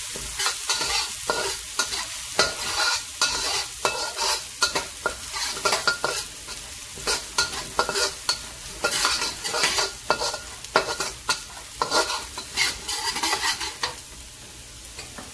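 Minced garlic and black pepper paste sizzling in hot oil in a steel wok, while a metal wok spatula scrapes and stirs it against the pan in quick repeated strokes. The scraping stops about a second before the end, leaving a quieter steady sizzle.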